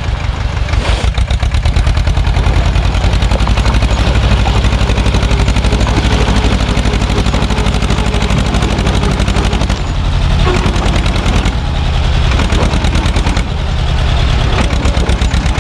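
Same tractor's diesel engine running close by as the tractor is driven with its trailer, a loud, rapid and even chugging beat. The level dips briefly about ten seconds in and again around thirteen seconds, then picks up.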